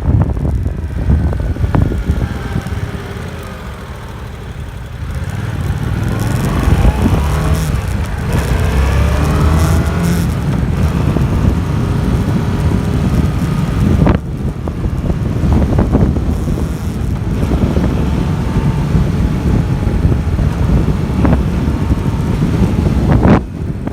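Yamaha MT-07 motorcycle with the stock exhaust, its 689 cc parallel-twin engine running under way; the engine note rises repeatedly as it accelerates, with brief drops between pulls.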